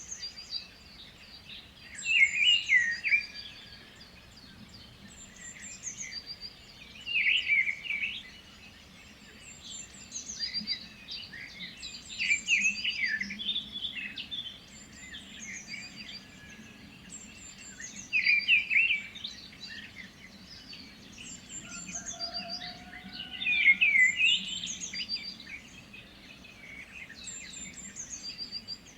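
Several songbirds singing, with bright chirping song phrases coming every few seconds, some louder and some fainter, over a faint steady background hum.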